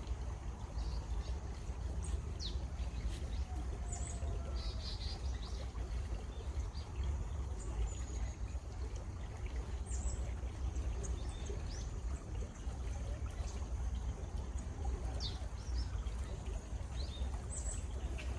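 Steady running water with birds chirping over it: short high chirps and whistles come and go at scattered moments.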